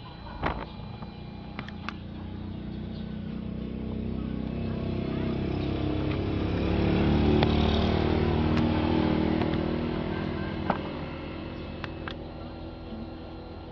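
A motor vehicle passing by, its engine sound swelling to loudest about seven to eight seconds in and then fading away. A few sharp clicks of the speaker's panel buttons being pressed, near the start and near the end.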